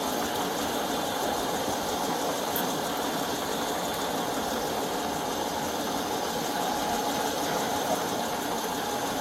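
A vehicle engine idling steadily close by, an even mechanical hum with no change in pitch or level.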